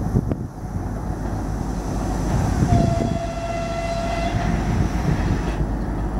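2M62 diesel locomotive running and moving slowly, with a steady low engine noise. About two and a half seconds in, a train horn sounds one steady note for about a second and a half.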